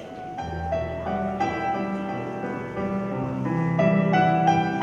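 Slow piano music: a low bass note enters about half a second in under a sustained melody that grows louder.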